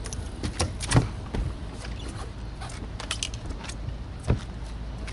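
Knocks and clatter of gear being handled on a bass boat's deck, with the loudest thump about a second in and another near the end, over a steady low rumble.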